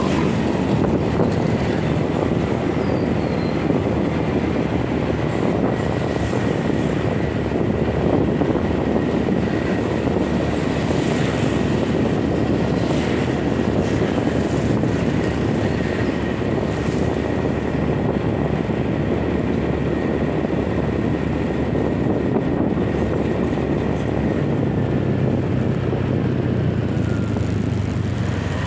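Wind rushing over the microphone and a motorcycle engine running steadily on a moving ride, with tyre and road noise. A low engine hum comes up more strongly a few seconds before the end.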